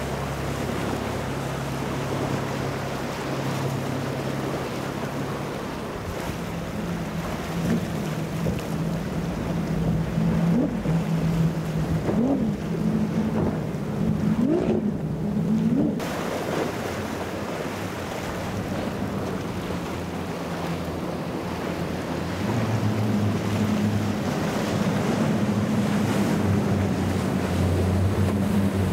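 Motorboat engines running over waves and wind noise on the microphone. The engine drone steps in pitch a couple of times and rises in a few short revs in the middle.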